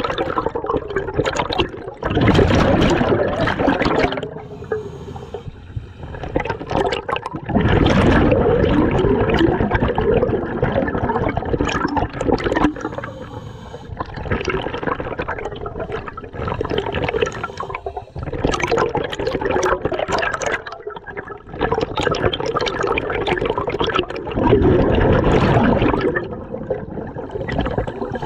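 Scuba diver breathing through a regulator underwater: exhaled bubbles gurgle in bursts lasting a few seconds, with short quieter breaks between breaths.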